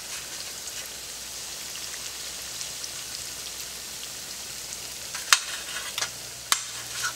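Breaded steak strips frying in shallow oil in a skillet: a steady sizzle. Near the end come a few sharp clicks of a metal fork against the metal broiler pan as strips are set down.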